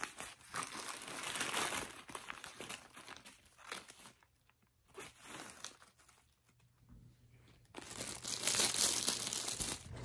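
Crinkling and rustling of a drawstring storage bag and its plastic wrapping as it is opened and handled, in two spells, one at the start and one near the end, with a quiet stretch between.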